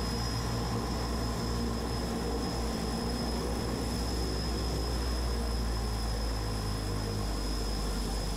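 A de Havilland Canada DHC-6 Twin Otter seaplane's PT6A turboprop engines and propellers running steadily at taxi power on the water. They make an even low drone with a thin high whine held over it.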